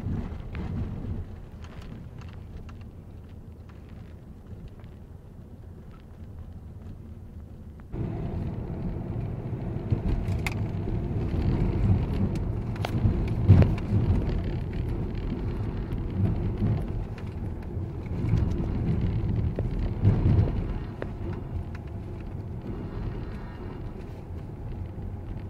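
Cabin noise of a 2007 Volvo V50's four-cylinder 2.0 diesel and its tyres on a snow-covered road: a steady low rumble that jumps abruptly louder about a third of the way in, with a few sharp knocks from the road later.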